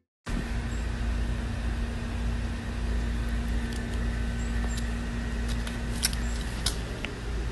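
Steady low rumble with a faint steady hum that stops about six seconds in, and a few light clicks near the end.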